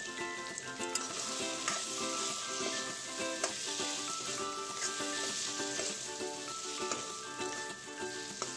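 Potato pieces and masala paste sizzling in hot oil in a metal kadhai while a metal spatula stirs and scrapes the pan, with several sharp clicks of the spatula against the pan. Soft background music with stepping notes plays underneath.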